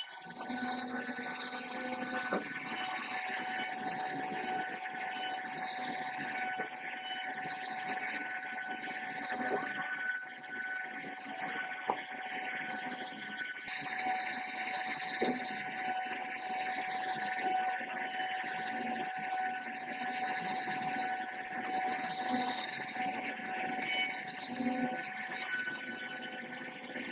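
CNC router spindle running with a steady whine while carving a wooden board, with occasional light clicks.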